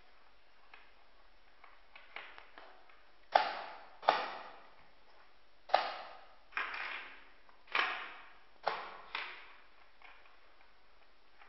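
Plastic chess pieces knocked down on a board on a table and chess clock buttons pressed in a fast game: about eight sharp knocks, several in quick pairs, between about three and nine seconds in.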